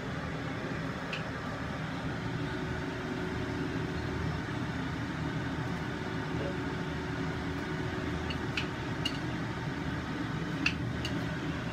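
Steady hum of a kitchen fan running, with a few faint clicks of kitchen scissors snipping through chicken thigh meat.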